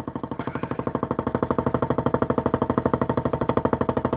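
Old hard drive voice-coil actuator, driven by a sawtooth signal through an amplifier to swing a mirror, buzzing with a rapid, even pulse. It grows louder about a second in.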